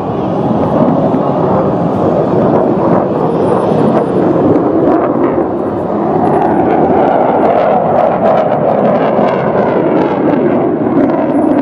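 Military fighter jet flying a display overhead, its engine noise loud and continuous, easing briefly about five seconds in.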